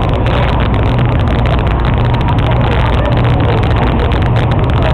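A ferry boat's engine droning steadily, a low, even hum with no change in pitch, heard on board.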